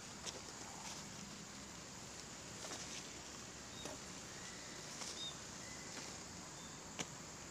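Faint outdoor field ambience: a steady hiss with scattered light clicks and rustles, and a few short, high bird chirps.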